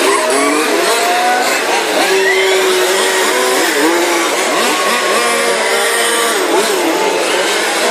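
Several 1:5-scale radio-controlled Formula 1 cars' small two-stroke petrol engines racing together, their overlapping pitches rising and falling as each car accelerates and backs off through the corners.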